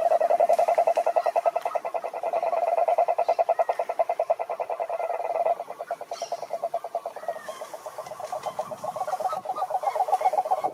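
Frogs calling in a fast, continuous pulsed trill, a rattling croak repeated many times a second. The calling drops in level about halfway through, then builds again toward the end.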